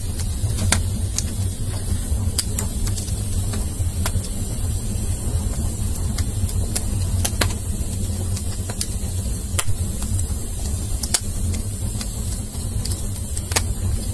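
Wood fire of split firewood burning briskly: a steady low rumble with irregular sharp crackles and pops, a few each second.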